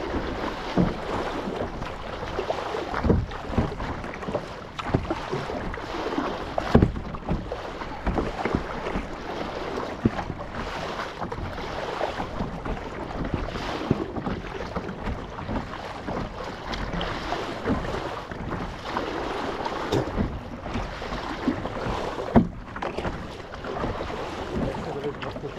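Kayak paddles dipping and splashing in seawater in an uneven run of strokes, with water sloshing against the hull and a few louder splashes or knocks. Wind noise on the microphone runs underneath.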